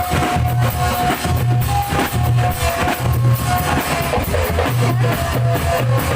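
Music with drums keeping a steady beat under a repeating melody.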